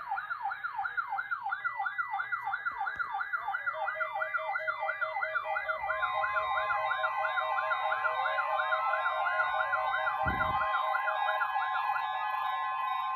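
Electronic siren yelping: a rapid rise and fall in pitch about three times a second. About six seconds in, a steady held tone joins it, and the yelp fades out into the held note near the end.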